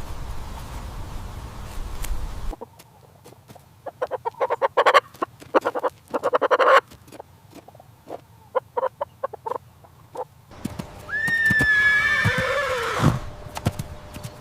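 Horse neighing: rapid quavering pulses, then a long high whinny that falls in pitch near the end. The clip cuts sharply in and out between calls.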